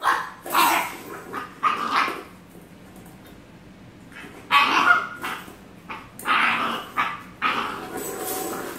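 A puppy barking and yipping in short bursts, with a pause of about two seconds in the middle, while a stainless steel water bowl scrapes and clatters on the tile floor.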